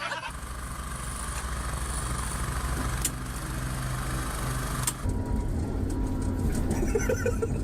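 A motor or engine running steadily, a low hum under a hiss. About five seconds in the sound changes abruptly to a different steady low rumble.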